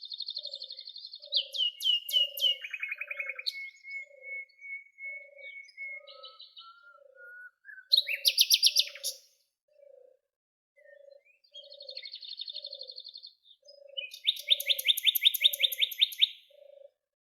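Several songbirds singing: rapid chirping trills and whistled phrases from different birds, overlapping and coming in bouts. Under them, a soft low note repeats evenly about every three-quarters of a second.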